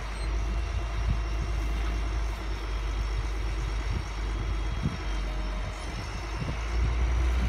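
Diesel engine of a wheel loader running steadily, a low rumble, while its lift arm is raised.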